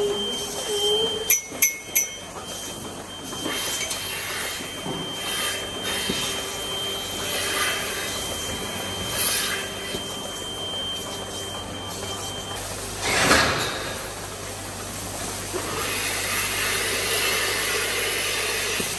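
Dairy milking parlour equipment running: a steady hiss and hum from the vacuum milking system, with three sharp clinks a little over a second in and a short loud hiss of air just past the middle as milking clusters are handled and put onto the cows.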